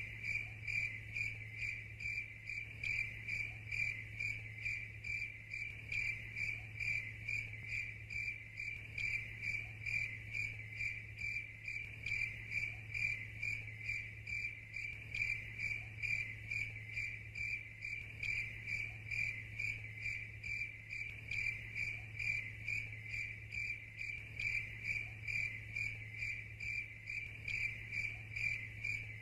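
A cricket chirping steadily in an even rhythm, about two chirps a second, over a faint steady low hum.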